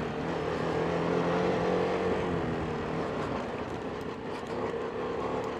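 Ducati motorcycle engine running at steady revs on an off-road climb, under a constant rush of wind and tyre noise.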